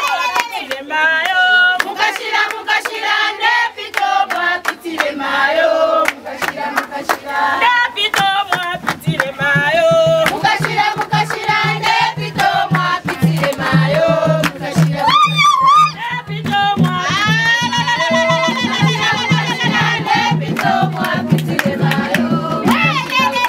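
Traditional Zambian song sung by a group of voices over rhythmic handclaps; a steady beat joins about eight seconds in.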